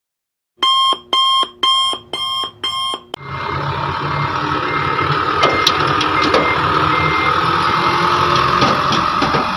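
Five loud electronic beeps about half a second apart. Then a heavy diesel vehicle's engine runs steadily, with a truck's reversing alarm beeping faintly and a few clanks.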